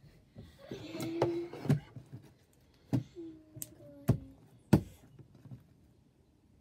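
Handling noise close to the microphone: rustling, then a run of about six sharp knocks and thumps over a few seconds, the loudest near the end.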